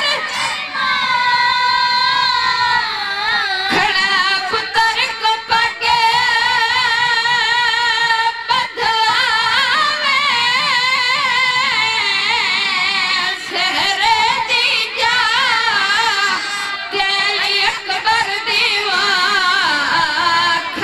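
A boy's high voice chanting a noha (Shia lament) into a microphone, in long held notes that waver.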